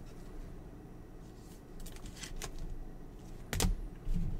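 Trading cards being handled and flipped through, quiet sliding of card stock with a few light ticks and one sharper click about three and a half seconds in.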